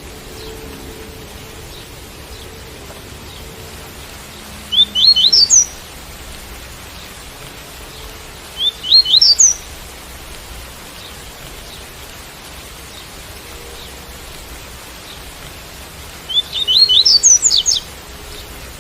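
Double-collared seedeater (coleiro) singing the tui-tui song: three short phrases of quick notes rising in pitch, about five, nine and sixteen seconds in. The song plays over a steady rain hiss.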